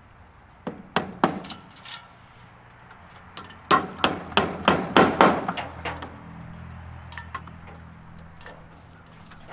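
Hammer driving nails into wooden boards: a few scattered blows about a second in, then a quick, even run of about eight blows roughly a third of a second apart.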